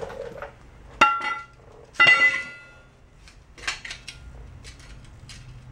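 Two ringing metallic clanks about a second apart, a loose steel leaf spring knocking against the leaf spring pack, followed by a few lighter metal taps.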